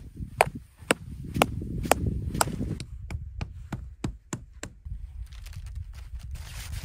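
Tent stake being struck into stony ground: about six sharp knocks half a second apart, followed by a run of lighter, quicker clicks.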